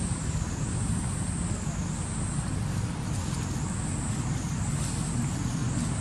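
Steady wind rumble buffeting the microphone, with a thin, even high hiss above it.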